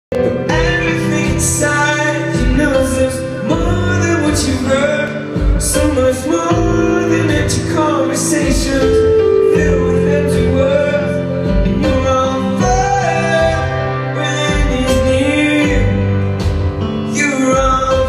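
Live rock band performing: a man singing into a microphone over acoustic guitar and drums, recorded from within the crowd.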